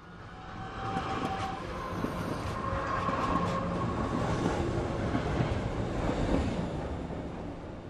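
A train running on rails, a steady rumble and clatter with a few brief high tones over it, fading in at the start and fading out near the end.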